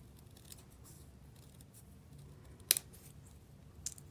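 Scissors snipping narrow strips of folded cardstock: a few faint cuts, with one sharp snip a little past halfway and another near the end.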